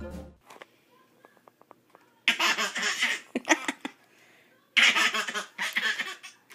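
Baby laughing in two bursts of giggles, about two seconds in and again near the end, with faint soft rustles before them.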